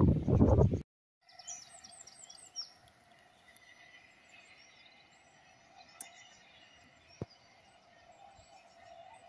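A loud rough rushing noise that cuts off abruptly within the first second. Then quiet countryside with a few quick, high bird chirps and a faint steady background hum, broken by two small clicks.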